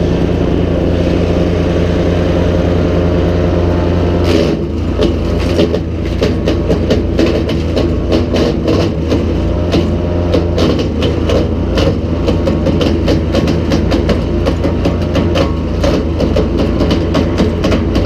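Nova GTS1500 wood chipper's engine running steadily, then from about four seconds in a rapid, irregular run of cracks and snaps as dried branches are chipped, with the engine still running underneath.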